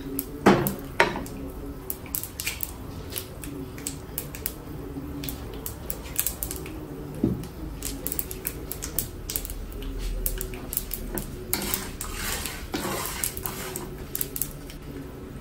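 Wooden spatula stirring and scraping lentils and peanuts frying in oil in a nonstick pan, with irregular taps and scrapes against the pan. The sharpest knocks come about half a second and a second in.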